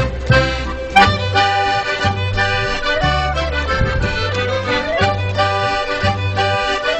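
Instrumental background music: sustained melody notes over a steady, regular bass beat.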